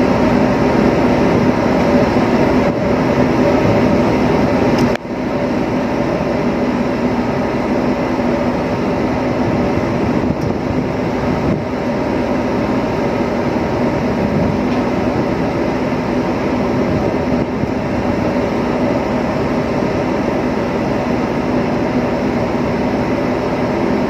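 Steady drone of a ship's running machinery, a constant hum with a few fixed tones, dipping briefly about five seconds in.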